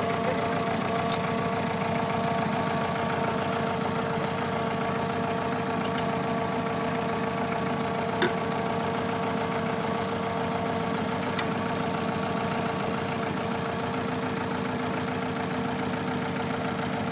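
Diesel engine of a Caterpillar paving machine idling steadily, with a steady hum over it and three sharp clicks.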